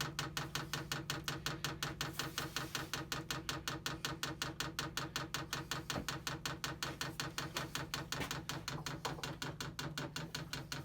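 12 V diesel heater fuel dosing pump ticking rapidly and evenly, about five clicks a second, over a low steady hum, while priming to draw diesel up the fuel line.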